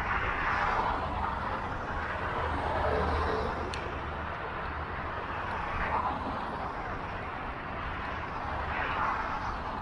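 City street traffic heard from a moving bicycle: a steady wash of road noise, with a few louder swells as vehicles pass, near the start, about six seconds in and about nine seconds in.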